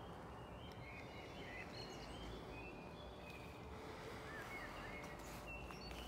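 Faint birds chirping and singing in short, scattered calls over a low, steady background rumble.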